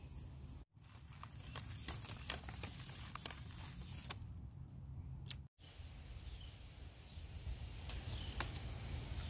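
Brown paper bag crinkling and dry leaves and stems crackling as picked Smilax (greenbrier) shoots are handled: a run of small sharp crackles with one louder snap about five seconds in. After that the crackling gives way to softer rustling of leaves and stems, and the sound drops out briefly twice.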